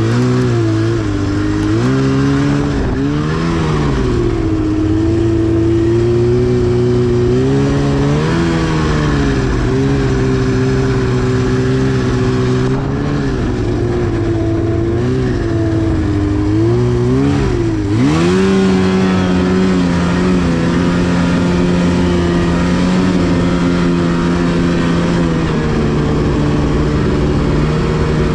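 2010 Arctic Cat CFR 1000 snowmobile's two-stroke 1000cc engine under way, its pitch rising and falling several times as the throttle is worked. About two-thirds of the way in it revs up sharply and then holds a higher, steady pitch.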